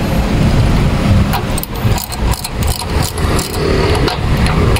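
Low, steady rumble of a motor-vehicle engine running nearby, with a few light metallic clicks from about a second and a half in as a socket is worked onto the stabilizer link's lock nut.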